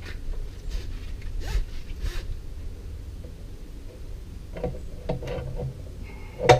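Short scraping and rubbing strokes, with a few light knocks, as wooden blocks are handled and shifted on a chipboard workbench, over a steady low rumble.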